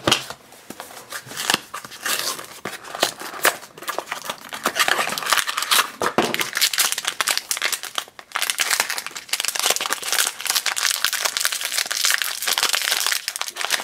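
Foil blind bag being torn open and crinkled by hand: a dense run of sharp crackling rustles, with a couple of short pauses.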